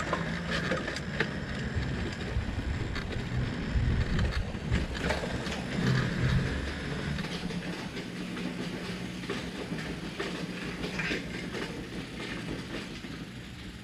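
Riding noise from a moving bicycle: wind buffeting the handlebar camera's microphone and tyres rumbling on pavement, with scattered clicks, growing quieter near the end.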